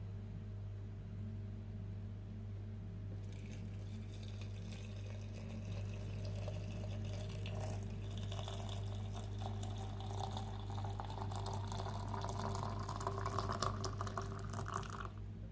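Tea being poured into a cup. The splashing starts about three seconds in, and the pitch of the filling rises steadily as the cup fills, until the pour stops just before the end.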